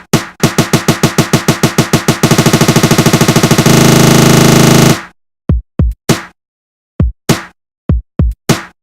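Electronic drum-machine beat played from an iPad beat app: a few kick hits, then a stutter roll that speeds up into a continuous buzz and cuts off suddenly about five seconds in, followed by sparse single kick hits with silences between.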